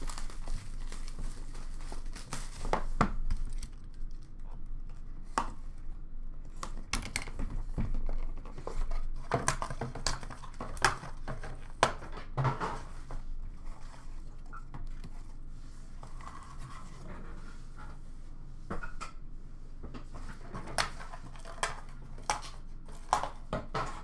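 A sealed trading-card hobby box being unwrapped and opened by hand: plastic wrap crinkling and tearing, and the cardboard box and lid being handled. Irregular knocks and taps run through it.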